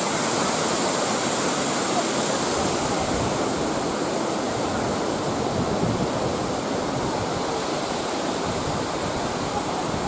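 Shirahige Falls and the stream below: a steady, unbroken rush of falling water.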